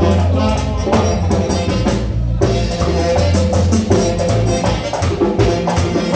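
Live merengue típico band playing an instrumental passage: accordion over a driving rhythm of tambora, güira scraping and electric bass. The high percussion breaks off briefly about two seconds in, then comes back.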